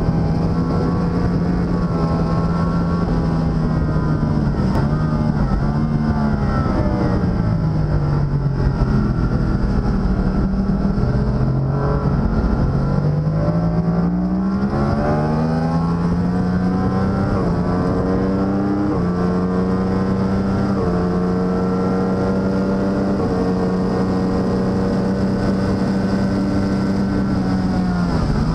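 Racing motorcycle engine heard from a camera mounted on the bike, over steady wind rush. The revs fall as it slows through a corner, climb again from about the middle, step up through several gear changes, hold steady at speed, then drop near the end.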